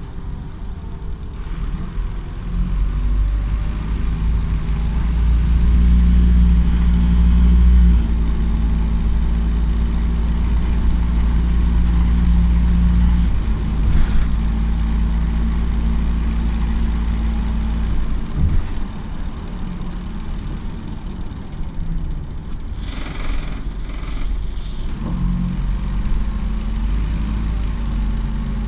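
Optare Solo single-deck bus engine heard from inside the saloon, accelerating with its note stepping at gear changes, then running steadily and easing off. A few short hisses of air come near the end.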